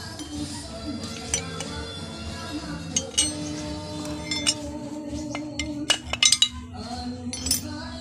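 A steel T-wrench rod striking the aluminium motorcycle sprocket hub and its 6203 bearing, giving several sharp metal clinks with a quick cluster of them about six seconds in, as the worn bearing is driven out of the hub.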